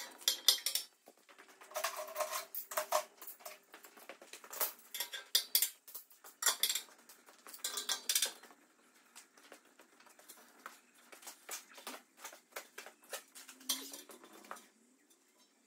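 Steel box-section offcuts and red toggle clamps clanking and clicking against a steel tractor wheel rim as they are clamped onto the wheel centre, in quick irregular metallic knocks. Near the end the heavy rim is tipped over onto its side.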